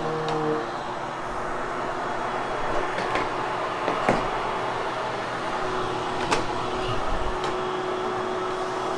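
Vacuum cleaner running steadily while being pushed over nylon carpet in a post-cleaning vacuuming pass, with a few sharp clicks about three, four and six seconds in.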